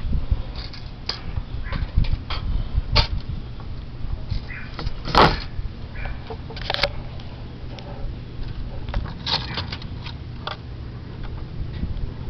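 Scattered knocks and clicks of objects being handled, the loudest about five seconds in, over a low steady hum.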